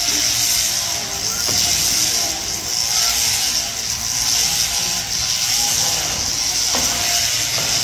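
Sheep-shearing machine handpiece running steadily as its cutter works through the fleece, a constant buzz with a strong high hiss.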